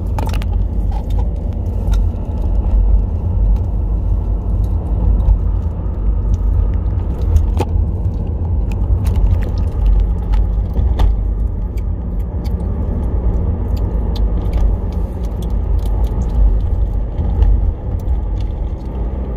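Steady low rumble of a car in motion, heard inside the cabin, with scattered light clicks and rattles.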